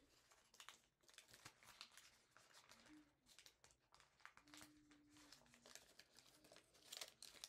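Faint crinkling and rustling of thin origami paper as it is handled, folded and creased by hand, in many small irregular crackles.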